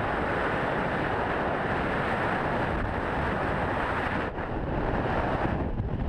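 Steady rushing noise of wind on the GoPro camera's microphone, mixed with boat and water noise, with no clear pitched engine note.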